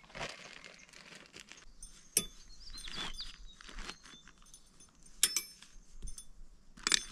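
Luggage being strapped onto a motorcycle's rear rack: scattered sharp metallic clinks of strap hooks and buckles with rustling of bags and cord. A few short high chirps sound a third of the way in.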